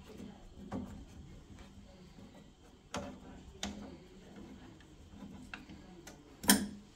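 Scattered small clicks and taps of a hex-key driver working the Allen screws of a new boiler circulating pump head, with a louder knock near the end.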